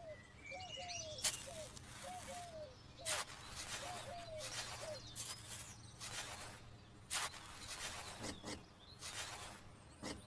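Birds calling outdoors, with short repeated chirps that rise and fall in the first half. Over them come about a dozen short, sudden bursts of noise, such as scraping or rustling, from about a second in.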